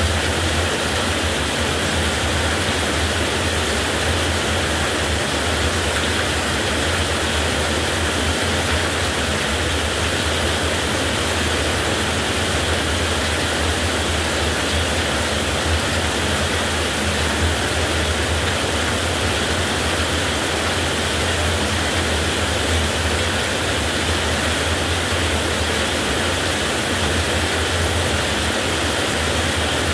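Heavy rain falling steadily, an even, unbroken wash of noise with no thunderclap.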